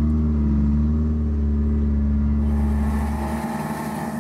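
The amphibious boat's 1.5-litre four-cylinder Ford engine running steadily as it drives the tracks. A hiss joins in about halfway through, and the deepest part of the hum drops away near the end.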